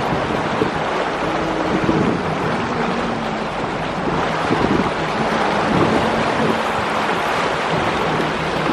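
Wind buffeting the microphone over the steady rush of sea water and the running of a sport-fishing boat's engines. A faint low drone changes pitch a few times.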